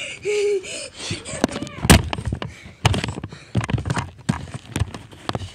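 Handheld phone being jostled and knocked about: a quick string of thumps and rubbing knocks, with one loud bump about two seconds in. A child's brief wail at the very start.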